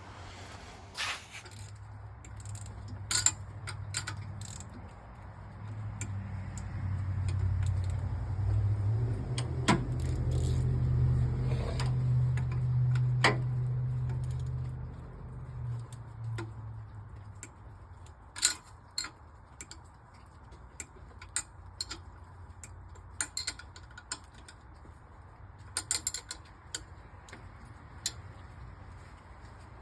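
Hand tools clicking and clinking on metal, scattered sharp taps, typical of unbolting a truck hood. A low drone swells up a few seconds in and fades away past the middle.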